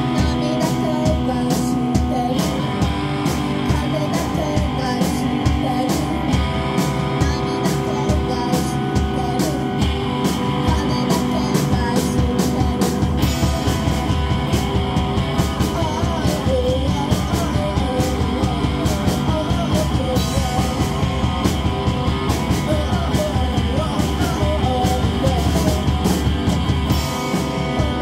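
Rock band playing live: distorted electric guitar and a drum kit keeping a steady beat, with a woman singing over them.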